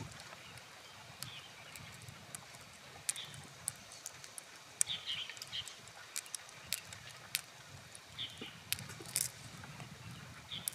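Quiet handling sounds of gloved fingers picking pearls out of freshwater mussel flesh: scattered small clicks as pearls knock together in the palm, and short soft wet squishes from the mussel tissue.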